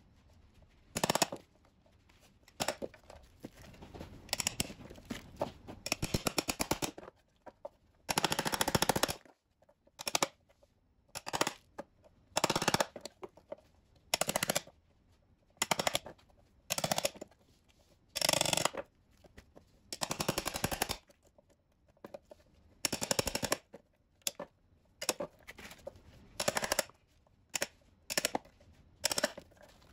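Claw hammer striking a chisel into dried chaga mushroom (Inonotus obliquus, the birch conk) on a wooden board, in quick flurries of rapid blows with short pauses between, chipping the hard fungus apart.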